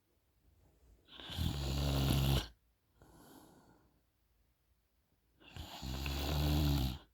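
A sleeping woman snoring: two loud, rough snores, one about a second in and one near the end, with a much softer breath between them.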